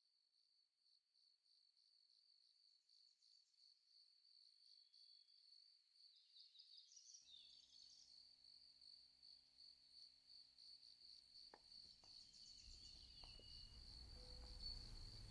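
Very faint insect chirping, like crickets: a steady, high, rapidly pulsing trill that fades in from near silence over the first few seconds. A low rumble grows underneath near the end.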